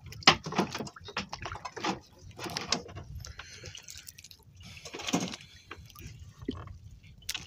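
Water splashing and dripping, with irregular knocks and rustles, as a wet fishing net and its catch are handled in a small boat.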